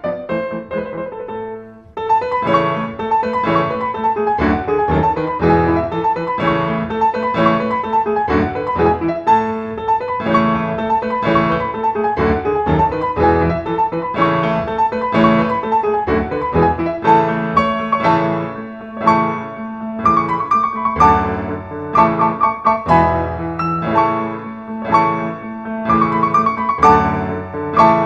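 Background piano music, a quick run of notes that fades briefly about two seconds in before a new passage starts.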